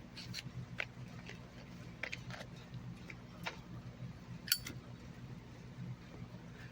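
Zippo lighter being handled: scattered light clicks, and one sharp metallic clink with a brief ring about four and a half seconds in.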